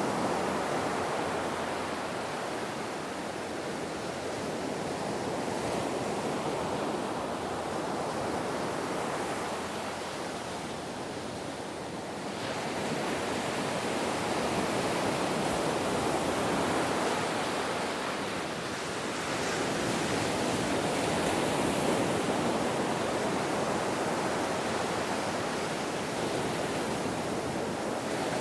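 Ocean surf: waves washing in as a continuous rush that ebbs and swells, with a fresh surge about twelve seconds in and another about nineteen seconds in.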